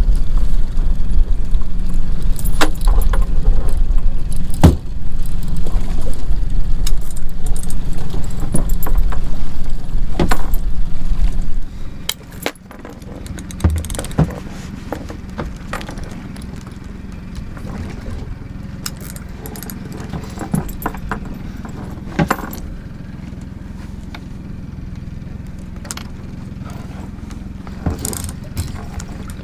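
Noise aboard a small fishing boat at sea: a loud low rumble for about the first twelve seconds, then an abrupt drop to a quieter steady background with scattered clicks and light metallic rattles of tackle.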